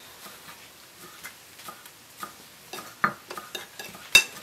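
Metal spoon clicking and scraping against a ceramic bowl as dried shrimp and chopped green onion are stirred together: light, irregular taps, with a sharper clink near the end.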